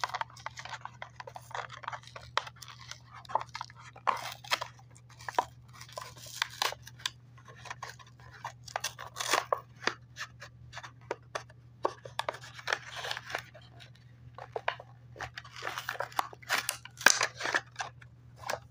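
Plastic blister packaging and card backing of a small toy figure being crinkled, pried and torn open by hand, in irregular crackles and rustles that come in denser flurries near the middle and again near the end. A faint steady low hum lies underneath.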